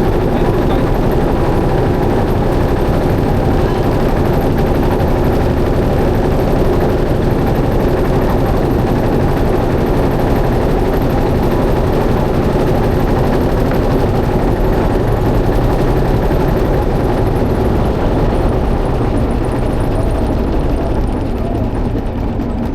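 Motorboat engine running steadily with a fast, even chugging, easing off slightly near the end.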